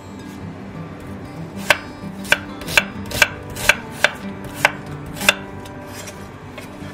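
Kitchen knife chopping an onion on a wooden cutting board: eight sharp chops about half a second apart.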